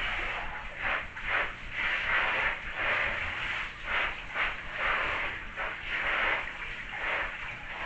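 Hand-held bathtub shower spraying water onto a glossy nylon down jacket and jeans, the hiss of the spray swelling and fading every half second or so as it is swept over the fabric.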